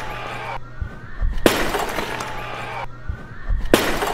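A clay jar thrown down onto a stage floor and shattering, with the shards scattering. The crash comes twice, a little over two seconds apart.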